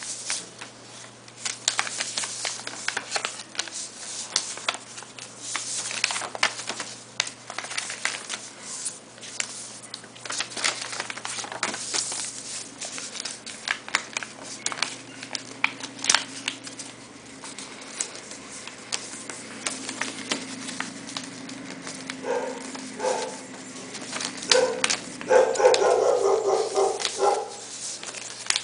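A sheet of paper rustling and crackling as it is creased and folded by hand into a paper plane. About two-thirds of the way in, a run of short pitched calls starts, loudest near the end.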